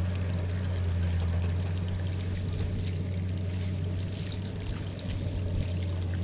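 Water pouring and splashing steadily through a culvert, over a steady low hum.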